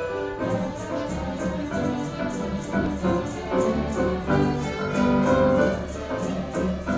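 Symphony orchestra playing, with strings sustaining the melody and harmony. About half a second in, a steady beat of shaken sleigh bells comes in, about three jingles a second.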